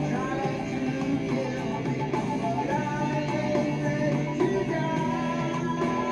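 Rock song playing, with guitar and a steady full band.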